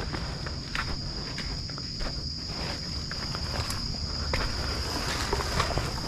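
Insects buzzing in a steady high-pitched drone, with irregular footsteps and scuffs as someone walks.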